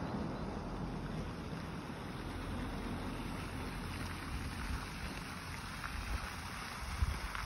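Wind rumbling over a phone microphone, a steady rushing noise with stronger gusts buffeting the mic near the end.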